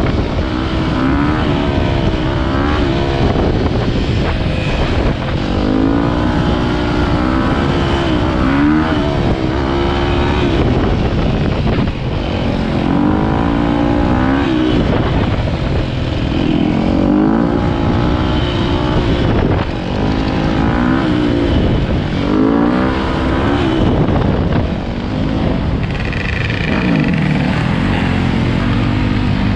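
Dirt bike engines revving up and down while riding, the pitch climbing and dropping again every second or two as the throttle is worked and gears change.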